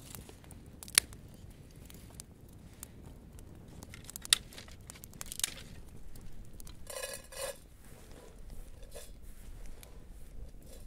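Small wood campfire crackling with a few sharp pops, the loudest about a second in and just after four seconds in, along with rustling of dry twigs being handled.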